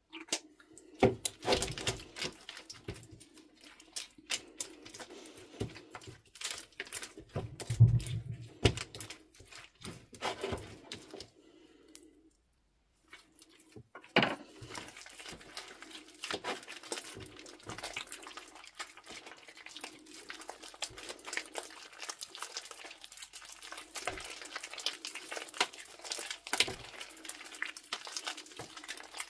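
Wet, sticky slime squelching, popping and crackling as hands press, squish and knead it on a plate, with many small irregular clicks. The sound breaks off briefly about twelve seconds in, then the squishing goes on.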